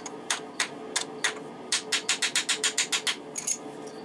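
Socket ratchet clicking while a bolt on the oil filter cover of a 1984 Yamaha Riva 180 scooter engine is turned: a few spaced clicks, then a quick even run of about eight clicks a second for over a second.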